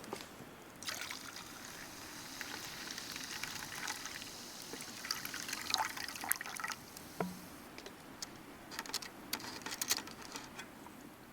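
Wood campfire burning: a steady hiss with sharp pops and crackles, thickest in the first half, then a quick run of louder crackles near the end.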